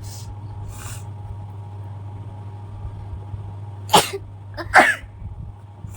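A woman sneezing twice in quick succession, the sneezes set off by powder sniffed into the nose. Two short sniffs come just before.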